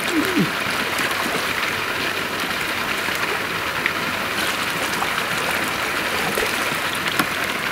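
Steady rain hissing on a lake surface, with the water splashing around a sturgeon as it is released from the hands in shallow water.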